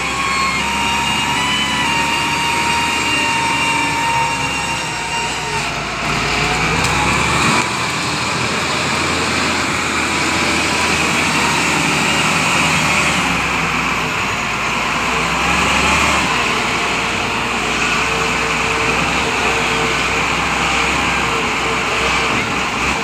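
Steady vehicle engine and traffic noise, with faint whining tones in the first few seconds.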